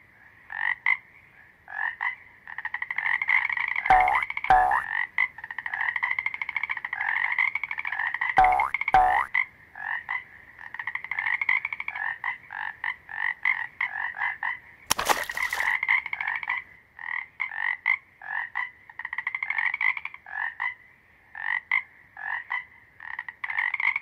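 Frogs croaking: repeated trains of short, rapid pulsed calls at a fairly high pitch, going on without a break. Two pairs of falling notes come a few seconds in, and a brief rush of noise comes about midway.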